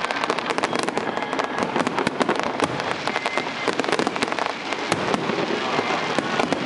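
Fireworks display: aerial shells bursting and crackling in a dense, unbroken run of sharp cracks and pops, many each second.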